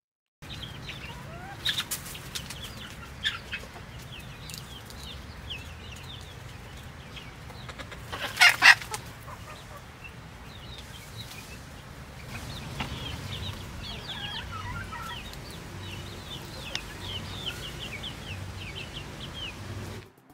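Domestic hens clucking, with one loud call about eight seconds in and many short high chirps scattered through.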